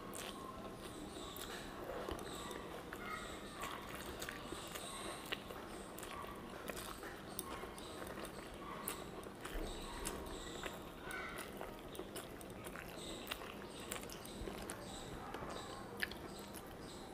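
A person chewing a mouthful of rice and fried vegetables, with irregular mouth clicks and lip smacks and the soft sounds of fingers mixing rice on a banana leaf.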